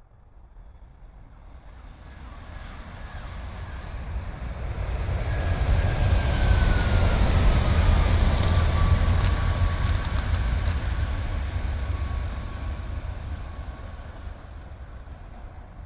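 A train passing by. Its rumble builds from quiet, peaks about halfway through and fades away, with a whine that falls in pitch as it goes past.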